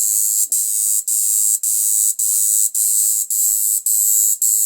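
Homemade electric fishing machine's MOSFET inverter running, a loud high-pitched hissing buzz that cuts out briefly about twice a second as its timer pulses the output.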